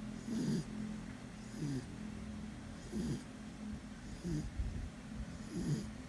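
Sleeping beagle snoring: five short snores at an even pace, about one every second and a half.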